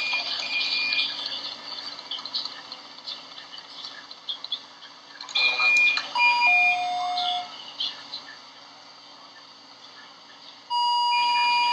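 IV infusion pump alarm beeping: short high beeps and a two-tone falling beep, a higher tone stepping down to a lower one. The alarm sounds about halfway through and again near the end.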